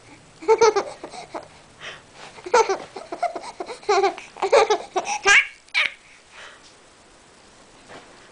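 Infant girl laughing in several short bursts of laughter, the last rising into a high squeal about five seconds in.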